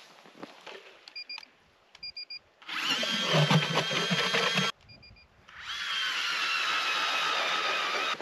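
Electric ice auger drilling through lake ice: the motor whines loudly under load for about two seconds, stops briefly, then runs again for nearly three seconds, its whine sagging a little as it bites. A few short high beeps come before and between the two runs.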